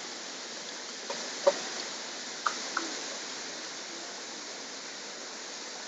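Steady rush of a fast-flowing stream, with four light clinks of a steel ladle against a steel plate as coconut paste is scraped into a pot, about one to three seconds in.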